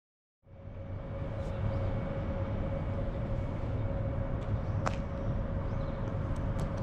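Outdoor street ambience: a steady rumble of distant traffic with a faint steady hum, cutting in suddenly after silence about half a second in. A single sharp click comes about five seconds in.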